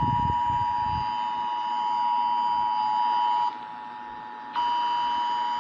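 Emergency Alert System two-tone attention signal broadcast over the radio, marking the start of a Required Monthly Test. A steady dual tone that cuts out for about a second a little past halfway, then resumes.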